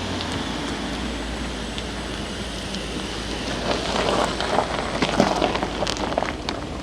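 Audi A7 45 TFSI's turbocharged 2.0-litre four-cylinder running on its stock exhaust, a steady low hum under a hiss, with a rough crackling noise that grows louder about halfway through and fades near the end.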